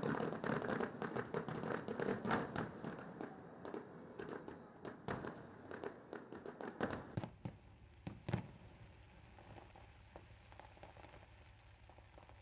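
Fireworks display: a dense run of crackling pops and bangs that thins out after about three seconds into a few single bangs, then dies down to a low steady background.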